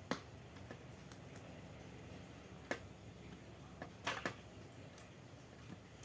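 A few sharp clicks and taps, small hard objects being handled and set down, over a faint steady low hum. The last two come close together.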